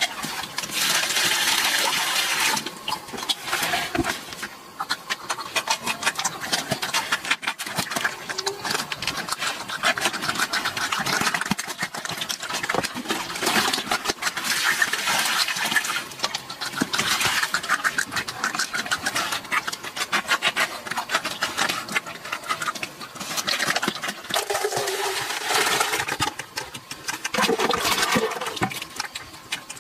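Pigs eating wet mash from a metal bowl: a fast, continuous run of wet chewing and slurping, in stretches with short pauses.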